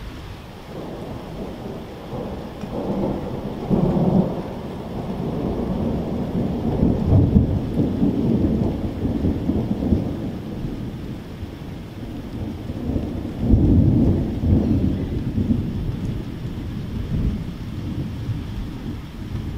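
Thunder rumbling in long rolls over steady rain, swelling about four seconds in, again around seven to ten seconds and most strongly near fourteen seconds.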